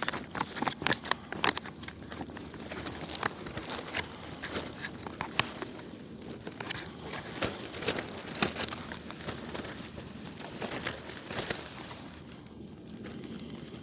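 Irregular crinkling and small clicks of a spoon working in a freeze-dried meal pouch as food is scooped out and eaten. The clicks are thickest in the first half and thin out later.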